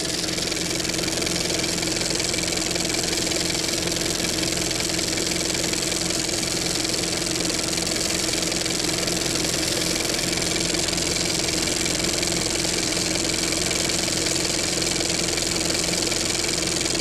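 A steady machine-like hum with several held tones, even in loudness throughout.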